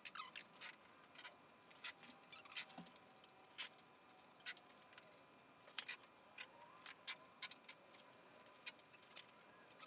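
Faint, irregular light clicks and ticks from hands laying and pressing fine-line masking tape along a wooden boat hull, over near silence.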